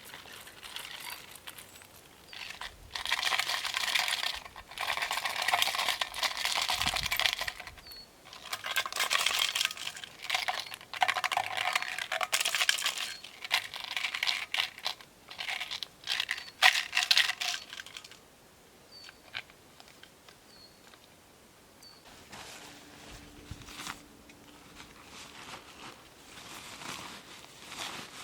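Rustling and crinkling in long bursts full of small clicks for most of the first two-thirds. The last third is quieter, with a few faint short high chirps.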